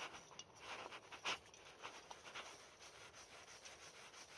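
Faint scraping and light clicks of a metal gas canister being turned in the hands as it is threaded onto a camping stove's hose connector, with one sharper scrape a little over a second in.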